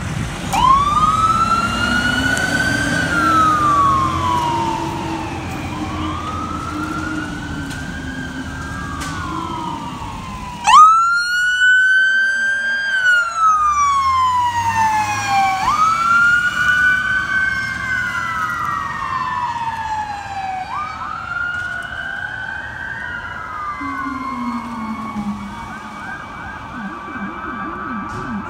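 Fire apparatus sirens wailing as a fire engine and a battalion chief's pickup respond on a call: long sweeps that rise and fall, two sirens overlapping, with a lower drone beneath them for the first ten seconds. A second siren starts suddenly and loudly about eleven seconds in, and near the end a rapid fast-cycling yelp joins as the sirens grow fainter.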